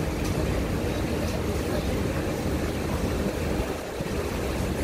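Steady low hum and rumble of a stopped SMRT C151B metro train standing at a station platform with its doors open.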